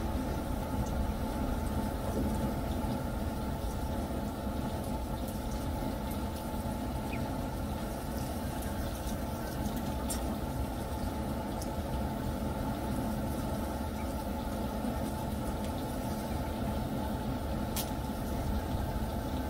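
A steady low mechanical drone, like a motor or engine running, that does not change.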